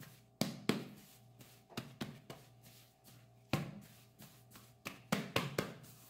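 Gloved hands kneading a ball of gluten-free bread dough on a marble worktop: a string of irregular soft slaps and thumps, about two a second. A faint steady hum lies underneath.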